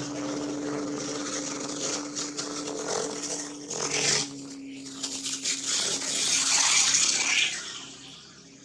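A steady low hum under a high hiss, with a run of clicks and crackles around the middle and a louder hissing swell about seven seconds in. The sound fades near the end.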